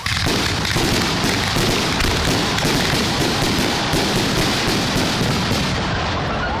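Dense fireworks barrage, many aerial shell bursts and crackles running together into one loud, continuous wash of bangs, easing off slightly near the end.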